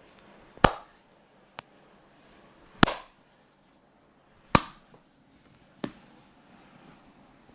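Hands striking the body in percussive massage strokes: three loud smacks about two seconds apart, with two fainter taps between them.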